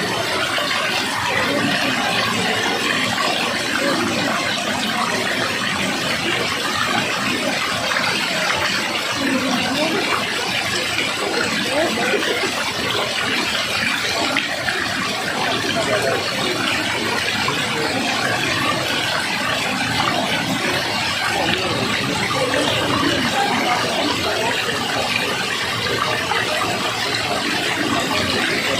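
Water flowing and rushing in a steady, unbroken stream.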